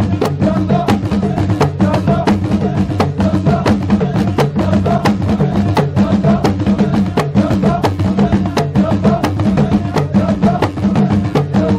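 Saharan folk music of a baroud troupe: a fast, steady beat of sharp percussive strikes and drums several times a second, over a steady low tone with wavering melodic lines above.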